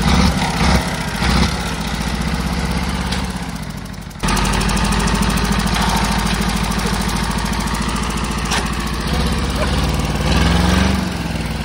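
Bare truck engine running steadily, its spinning fan blades chopping celery and carrots held into them, giving a few sharp hits over the engine noise in the first second or so and once more later on.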